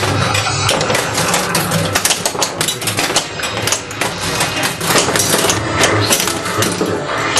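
Bally The Shadow pinball machine in play: a dense, irregular clatter of sharp clicks and knocks from the steel ball and the playfield mechanisms firing.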